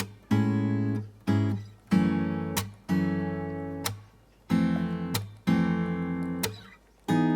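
Background music: strummed acoustic guitar chords, some held and some damped short, in a loose rhythm.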